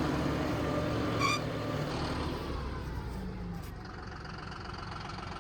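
An engine running steadily, dropping away and growing quieter over the last few seconds.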